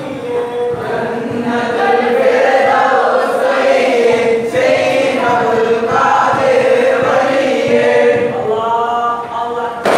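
Group of male voices, men and boys, chanting a devotional ratheeb in unison, with no drums sounding.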